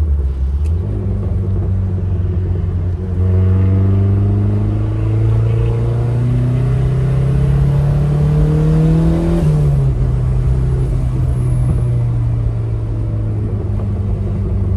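Turbocharged Mazda Miata four-cylinder engine pulling under part throttle. The engine note climbs steadily for several seconds, drops sharply about ten seconds in as it shifts up, then holds steady.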